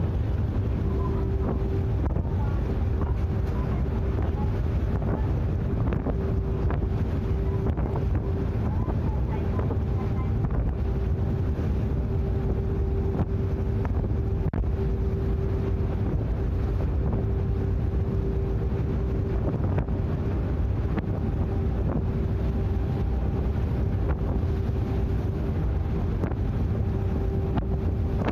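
Sightseeing icebreaker ship's engines running with a steady low drone and a constant hum tone, with wind buffeting the microphone.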